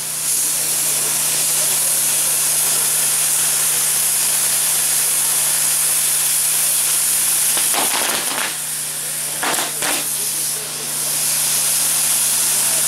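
Fireworks castillo (bamboo fireworks tower) burning: its spark fountains and wheels give off a loud, continuous hiss.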